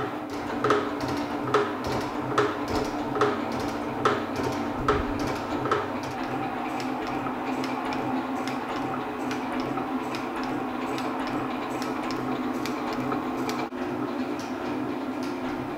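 Elliott 10M metal shaper running, its ram stroking back and forth with a sharp click about once a second as the tool takes the tops off a TIG-welded aluminium boss on a cylinder head. After about six seconds the clicks become lighter ticks over the steady hum of the machine.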